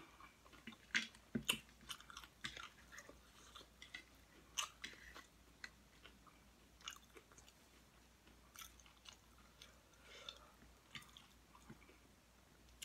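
A person chewing crunchy nachos made on Doritos chips, with faint, irregular crunches, the loudest about a second in and again near five seconds.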